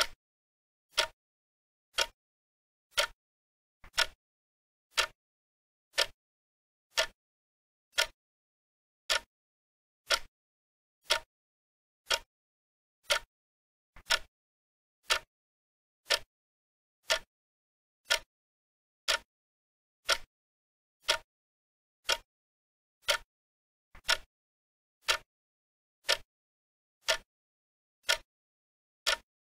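Clock-tick sound effect, one short ringing tick a second, counting down the time given to answer.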